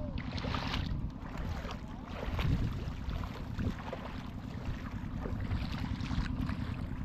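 Steady low rumble of wind buffeting the microphone outdoors, with faint scattered ticks.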